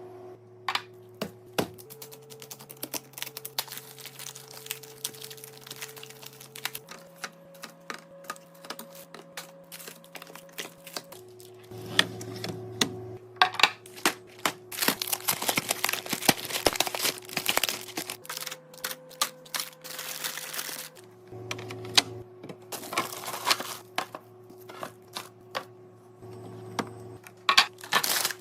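Quick clicks and clacks of containers, cans and packaging being set into a fridge, with plastic crinkling, over background music of sustained chords that change every few seconds.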